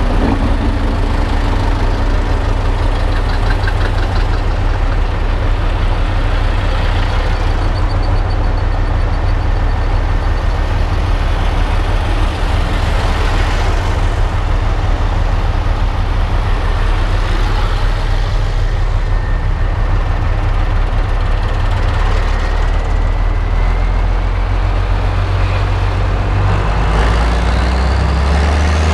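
Tractor engine running steadily at a constant low pitch, heard from the cab while driving, growing louder near the end.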